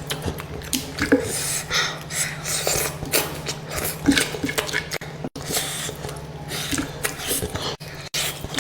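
Close-miked eating sounds: irregular crunching, rasping chews and small wet mouth sounds, many short clicks a second. A steady low hum runs underneath.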